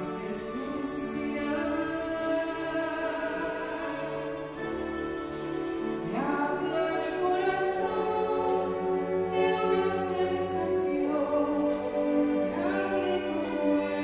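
A female vocalist sings in a classical style over a small orchestra's strings. She sings long held notes with vibrato, and a new phrase begins about every six seconds.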